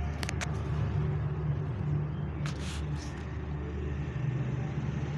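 Tractor diesel engine running steadily at low revs, with a few short clicks near the start and about two and a half seconds in.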